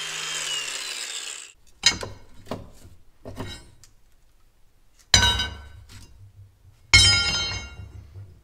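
Cordless angle grinder spinning down after cutting through a steel rear coil spring, its whine falling in pitch and fading within the first second and a half. Then a few light clinks and two loud ringing clangs, about five and seven seconds in, as the cut pieces of the coil spring are pulled out and knock against metal.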